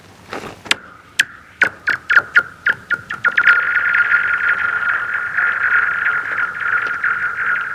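A rock skipped across thin, freshly frozen lake ice: a series of sharp strikes coming faster and faster, each with a high ringing tail, then a long steady high ringing with fine ticking as the rock slides on over the ice.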